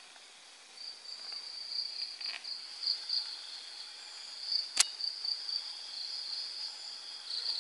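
Insects chirring steadily in one high-pitched band, pulsing slightly, over a faint background hiss. A single sharp click about five seconds in.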